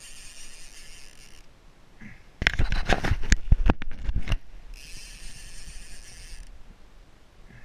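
A fishing reel's clicker buzzing in spells of a second or two as line is pulled off the spool, the sign of a fish taking the bait. Between the spells come about two seconds of loud knocks and rattles from a hand grabbing the rod and bumping the kayak and camera.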